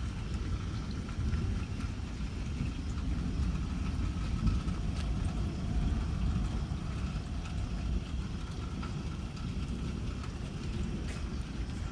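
Thunderstorm: rain falling under a continuous low rumble of thunder, with a few scattered drip ticks.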